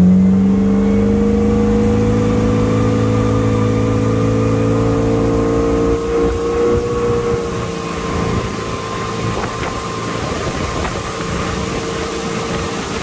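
Mercruiser sterndrive engine with a Quadrajet carburettor running at speed under way, holding a steady pitch after climbing, then easing off slightly about seven seconds in under the rush of wind and water. It runs smoothly, the Quadrajet's flooding cured by a newly fitted fuel pressure regulator.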